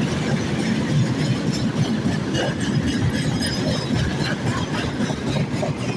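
Freight train wagons rolling past: a steady rumble and clatter of wheels on the rails.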